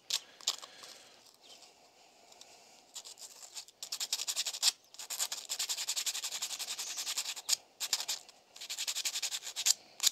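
An e-bike disc brake pad rubbed back and forth on fine sandpaper. Quick, even scraping strokes start about three seconds in. The pad's edges are being broken and its surface freshened to cure brake squeal.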